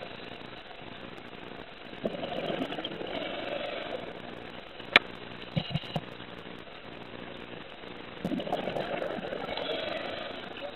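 Scuba diver's regulator underwater: two bursts of exhaled bubbles, each about two seconds long, over a steady low hum, with one sharp click and a few low knocks between them.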